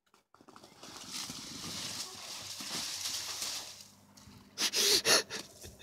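A bicycle running down a snowy slope and crashing, its tyres and then the rider sliding in the snow with a steady hiss for about three seconds. Near the end come a few short vocal sounds.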